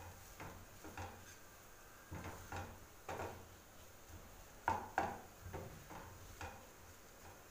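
Wooden spatula scraping and tapping against a non-stick frying pan while stirring a mashed-potato filling: a run of soft, irregular strokes, with two louder knocks about five seconds in.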